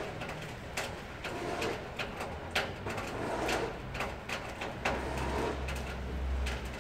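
Soft low cooing calls of birds, repeating every second or so, with scattered faint clicks. A low rumble builds near the end.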